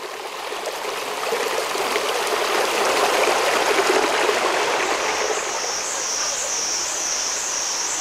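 Shallow rocky creek running over stones, a steady rush of water. About five seconds in a high, pulsing buzz joins it, about two pulses a second.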